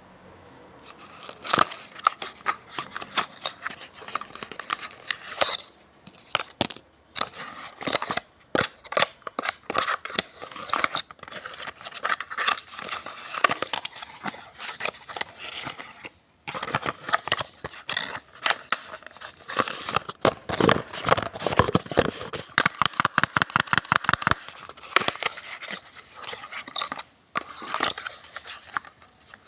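Cardboard toothpaste carton being handled and opened: the card crackles, scrapes and tears in sharp irregular clicks, with a fast even run of clicks about two-thirds of the way through.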